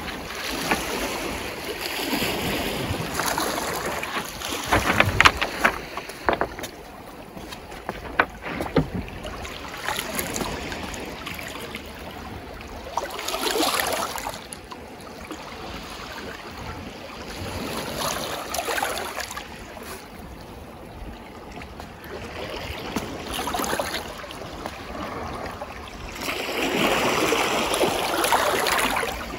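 Small waves of a calm sea lapping and washing over a pebble shore, swelling and fading every few seconds and loudest near the end. There are a few brief clicks in the first third, and wind on the microphone.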